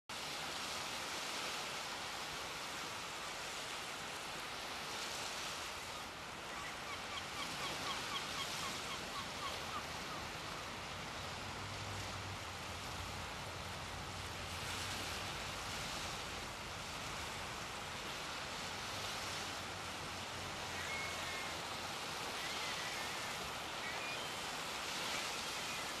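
Steady wash of surf on a shingle beach, with a few faint short bird calls twice, near the middle and near the end.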